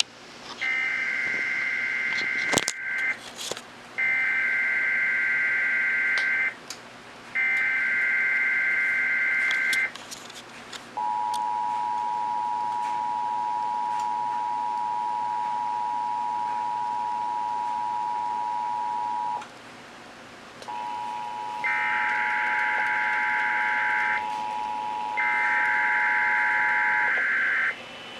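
Emergency Alert System signals. First come three SAME header data bursts, buzzy shrill chirps of about two and a half seconds each with short gaps between them. Then the two-tone EAS attention signal (853 and 960 Hz) holds steadily for about eight seconds, marking the start of an emergency alert. After a brief break the attention tone sounds again, with two more data bursts over it near the end.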